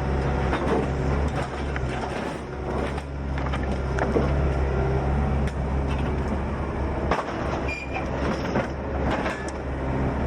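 A large engine running steadily, with a low hum, briefly dipping about seven seconds in, and scattered knocks and clatters over it.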